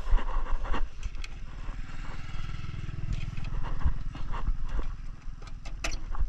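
A motorcycle engine running as it passes by, its low rumble strongest a few seconds in. A few sharp clicks come from plastic fibre-optic connectors being handled in a distribution box.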